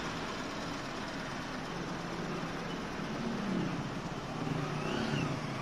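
Street traffic noise: a motorcycle engine running close by, with a small pickup truck's engine growing louder as it drives up alongside from about halfway through.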